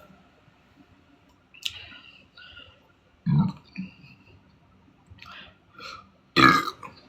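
A woman burping deep, bassy burps: a short low burp about three seconds in and a louder one near the end. Quieter mouth sounds and clicks come between them.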